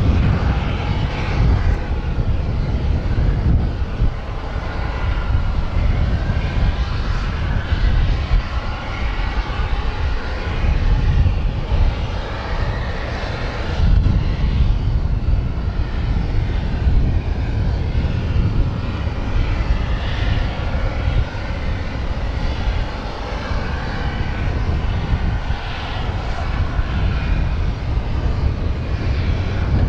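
Aircraft engine running: a steady heavy rumble with a wavering hiss above it.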